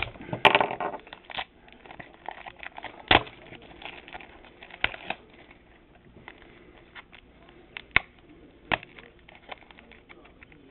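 A tightly sealed trading card pack being pried open with a screwdriver: scattered sharp clicks, scrapes and crinkling, with a louder rustle about half a second in.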